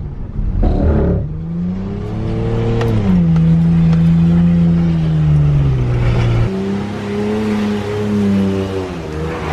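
Car engine revving hard during a burnout or donut attempt in an automatic. The pitch climbs over the first few seconds, holds high, drops about two-thirds of the way through, then rises and falls again.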